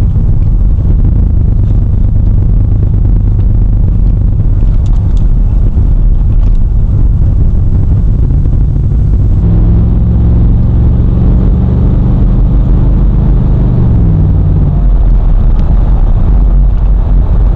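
In-cabin sound of a 1996 Buick Roadmaster's LT1 V8 car under way: a steady low road and engine rumble. A clearer engine hum comes in about halfway through and falls away after about five seconds.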